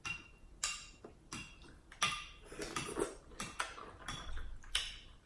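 Irregular clicks and clatters of dishes and utensils at a seafood-boil meal, about a dozen sharp knocks spread over the few seconds, with a busier patch of clinking and rustling in the middle.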